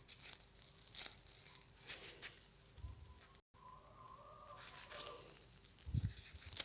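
Faint soft tearing and crinkling of freshly fried yeast-dough pişi being pulled apart by hand, with a couple of dull thumps near the end.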